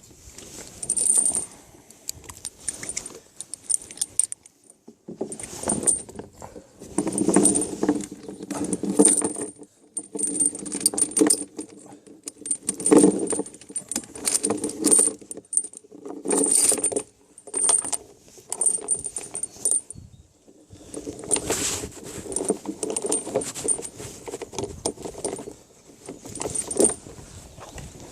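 Metallic clinking and rattling in bursts, like small metal objects being handled and jostled, with short pauses between bursts.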